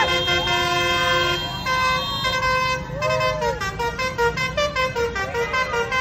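Basuri telolet horn on a Tunggal Jaya Jetbus 3+ tour bus playing a tune: several steady horn notes sounding together and changing in steps, breaking into a quick run of repeated pulsing notes in the second half.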